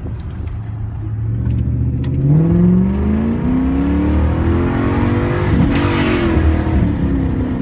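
Straight-piped Lexus LS400 4.0-litre V8 engine running at a steady low note, then revving up from about two seconds in. The revs hold high for a few seconds and drop back near the end.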